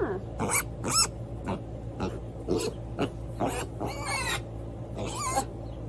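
Young potbellied pig squealing in a rapid string of short, high calls, about one or two a second, typical of a pig begging for more food right after a treat.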